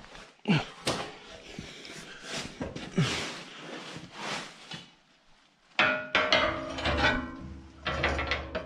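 Knocks and clunks of sheet-metal body panels being handled and fitted, with short scraping slides between them. Background music starts about six seconds in.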